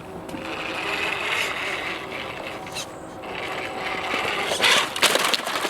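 3D-printed RC crawler driving, its electric motor and gearbox whirring in two spells, with a burst of loud clattering knocks near the end.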